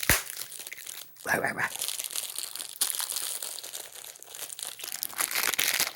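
Candy packaging crinkling and rustling as it is handled and opened, with a sharp knock right at the start.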